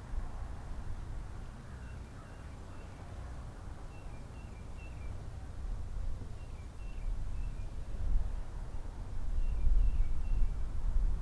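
Small songbird chirping faintly in four short groups of quick high notes, over a low rumble that grows louder in the second half.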